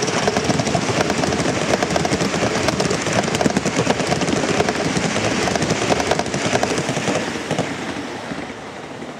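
Gauge 1 live-steam model train, a rebuilt Merchant Navy locomotive with a rake of coaches, running past: a fast, dense clicking clatter of wheels on the rails, fading about seven to eight seconds in as the train draws away.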